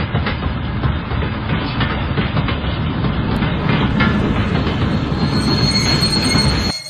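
Model train rolling past on plastic track: a steady rumble with a quick, uneven run of clicks as the wheels cross the rail joints, and a thin high whine joining about two-thirds of the way in. The sound cuts off suddenly just before the end.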